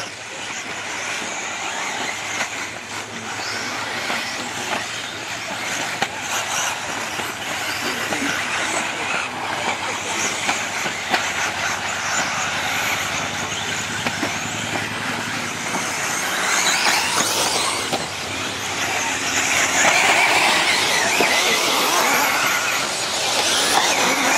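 Several 1/10-scale electric four-wheel-drive offroad RC buggies racing on a dirt track, their motors whirring and tyres running over the dirt. The sound gets louder about two-thirds of the way in as the cars pass close.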